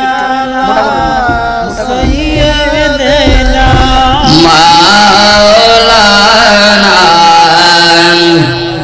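A man's voice singing a long, wavering melismatic line of an Islamic zikr chant through a microphone and loudspeaker, over a steady held tone underneath.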